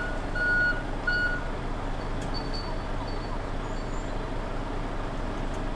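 Reversing alarm beeping about once every 0.7 seconds, stopping after two more beeps about a second and a half in. Under it the truck's diesel engine idles steadily.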